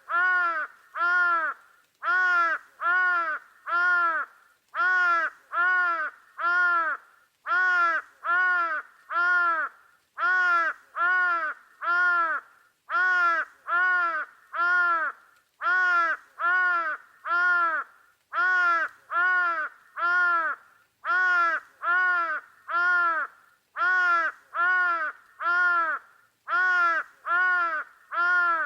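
A bird calling over and over with harsh caws, in groups of three or four, each caw short and arching in pitch, with a new group every two to three seconds.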